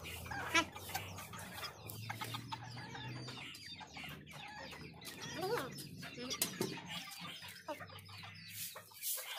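Domestic chicken clucking on and off, with a couple of short rising-and-falling calls, over scattered small clicks and scrapes.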